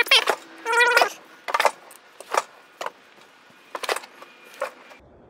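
Shovel scraping and turning a damp mix of compost and shredded cardboard in a garden cart, in separate strokes about every half second to a second. A few short pitched animal calls are heard in the first second.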